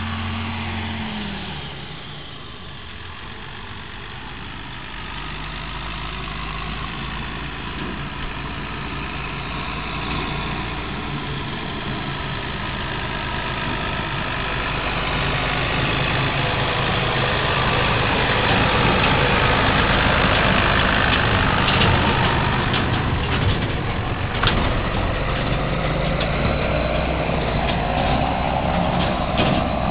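John Deere 7810 tractor's six-cylinder diesel engine pulling two high-sided silage trailers on a gravel track, growing louder as it approaches and passes. Sharp knocks and rattles come in near the end.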